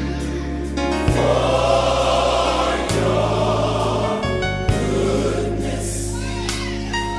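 Gospel choir singing with instrumental backing, the bass notes shifting every couple of seconds.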